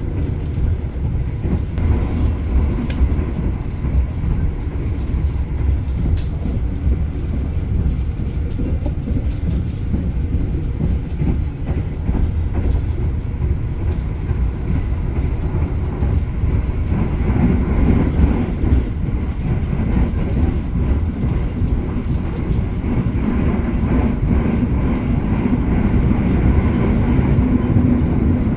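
KA Argo Bromo Anggrek passenger train running at speed, a steady low rumble of wheels on the track heard from inside a coach, with a few faint clicks in the first seconds and a slightly stronger hum in the second half.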